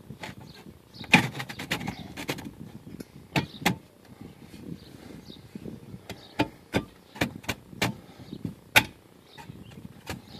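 A blue rack-and-pawl jack being raised under a trailer frame, its pawl clicking over the rack teeth: a quick cluster of clicks about a second in, then single clicks at irregular gaps of a third of a second to a second as the jack head brings a wooden block up against the beam.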